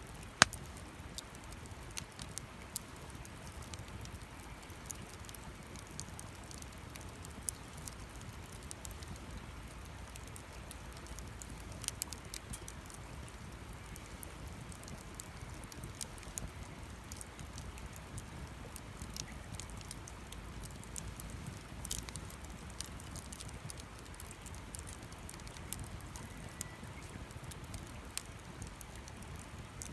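Wood campfire burning, with irregular sharp crackles and pops over a low steady rush; one loud crack about half a second in.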